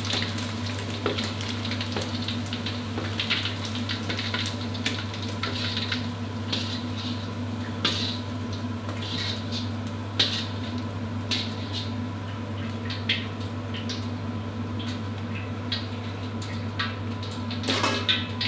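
Wire spider strainer clinking and scraping against a wok as fried chicken wings are lifted out of the oil, over a light sizzle of frying oil. Under it runs a steady low electrical hum.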